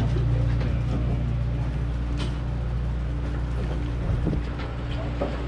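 Steady low drone of the party boat's engine running, with a few light knocks.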